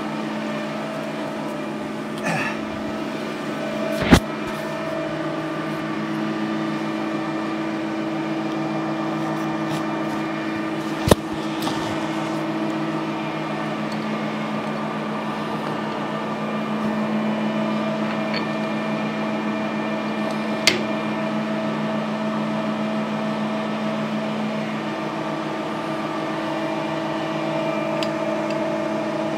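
An electric motor running steadily with a hum. A few sharp clicks or taps sound over it, about 4, 11 and 21 seconds in.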